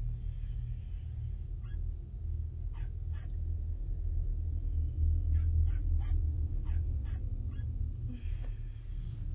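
A steady low rumbling drone, with about a dozen short, sharp high sounds scattered over it in uneven clusters, like yips or clicks.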